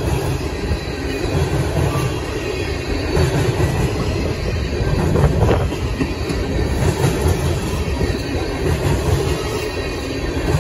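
A slow CSX freight train's tank cars rolling past: a steady rumble of steel wheels on rail, briefly louder about five seconds in.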